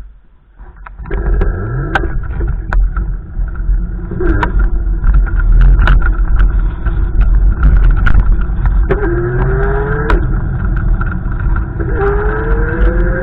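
Storm wind gusting hard and buffeting the microphone in a heavy low rumble, with whistling tones that rise in pitch a few times and scattered sharp clicks and taps.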